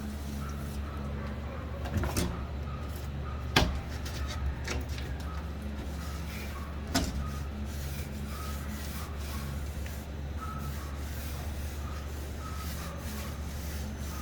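A neighbourhood dog barking again and again over a steady low hum, with a few sharp knocks, the loudest about three and a half seconds in.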